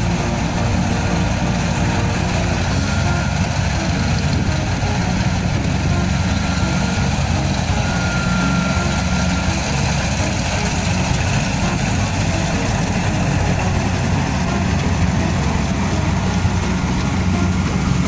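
Kubota DC-70 combine harvester's diesel engine running steadily while the machine cuts rice.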